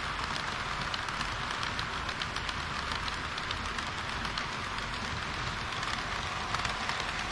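HO-scale model train running on its track: a steady rushing rattle of wheels and motor, with faint light clicks through it.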